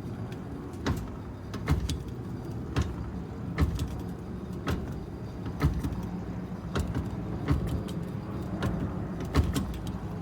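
Steady road rumble from a moving car, with sharp clunks and rattles about once a second from the hitch-mounted bike rack shifting as the car goes over bumps. The clunks are the sign of the rack's loose, wobbling fit in the hitch receiver.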